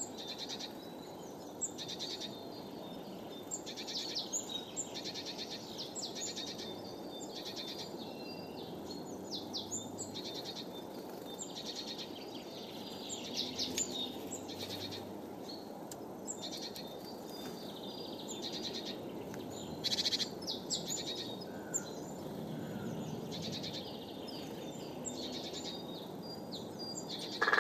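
Small songbirds calling, with many short, high chirps and trills coming in bursts, over a steady low background rumble. A brief louder sound comes right at the end.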